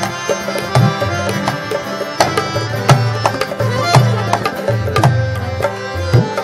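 Instrumental Indian music led by tabla playing a steady rhythmic pattern, with low bending bayan strokes over sustained tones.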